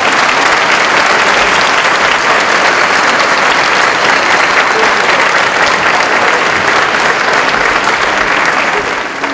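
A large audience in an auditorium applauding, a dense, steady clapping that eases slightly near the end.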